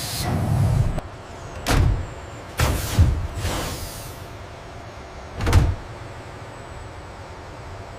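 Hydraulic cylinder rig under a high-pressure test: a few heavy mechanical clunks and short hissing bursts in the first six seconds, then only a faint steady hum.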